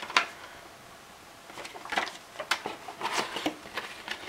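Hands handling the contents of a camera box: scattered light clicks, knocks and rustles, sparse at first and busier from about a second and a half in.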